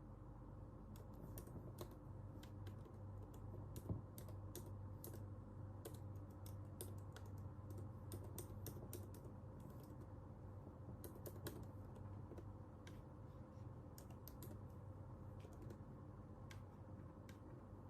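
Typing on a computer keyboard: irregular runs of faint keystroke clicks with short pauses between them, over a steady low hum.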